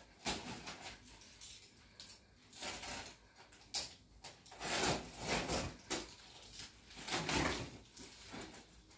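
Cardboard box being opened by hand: flaps and packing pulled and scraped, rustling in a series of short bursts, loudest a little past the middle and again near the end.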